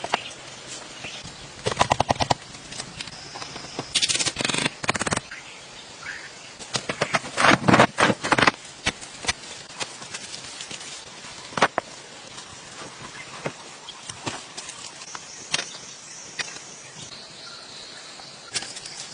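Sticks and brush being handled while building a shelter: several bursts of rapid cracking and rustling, with scattered single clicks in between.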